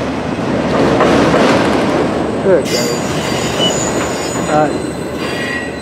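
Freight cars of a CN mixed-freight manifest train rolling past with a steady rumble of wheels on rail. A high metallic wheel squeal joins in about halfway through.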